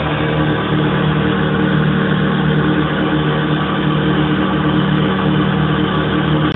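Nova Drone analogue synthesizer sounding a dense, steady drone: several held tones under a gritty, slightly pulsing noise, its oscillators and filters sequenced from a Raspberry Pi.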